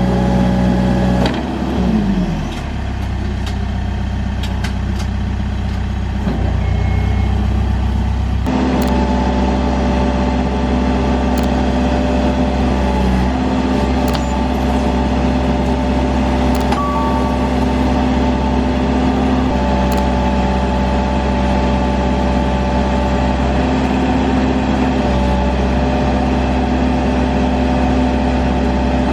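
Case 580 Super N backhoe loader's diesel engine running. About a second and a half in it drops to a lower, quieter idle with a few clicks and knocks, then about eight seconds in it revs back up and runs steadily at higher speed, with a steady high whine.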